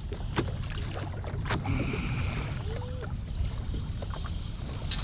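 Steady low rumble of wind on the microphone over choppy water lapping at the boat, with a few sharp clicks.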